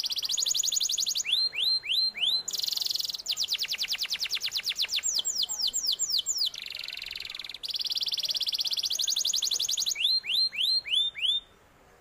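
Domestic canary singing: long, fast trills alternating with quick runs of falling slurred notes, the song stopping shortly before the end.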